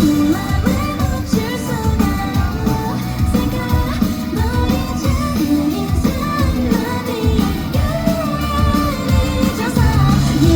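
A pop-rock band playing live, with a woman's voice singing the melody over the full band.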